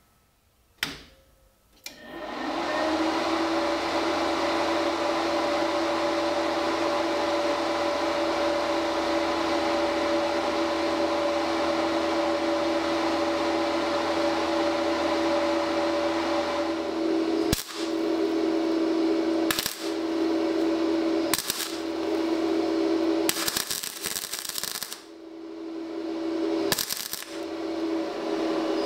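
A click, then a multi-process inverter welding machine's cooling fan spins up and runs with a steady hum and hiss. In the last third it is broken by a few short clicks and dips.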